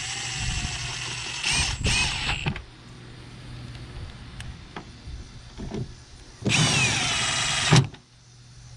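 Cordless drill/driver running in screws for the pickup's third brake lamp assembly: a motor whine for about a second and a half, two short bursts just after, then a pause and another run of about a second near the end.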